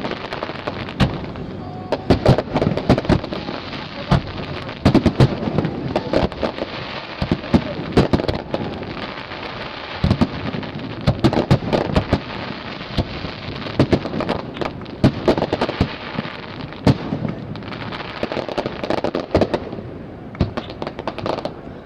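Aerial fireworks display: shells bursting in quick, irregular succession, many sharp bangs over a continuous crackling hiss.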